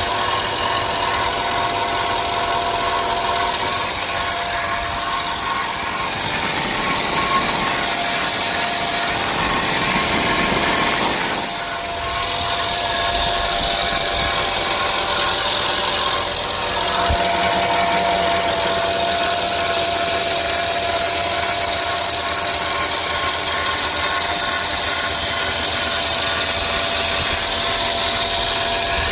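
A motor or engine running steadily, with a steady whine over a noisy hum; it changes briefly about halfway through, then settles again.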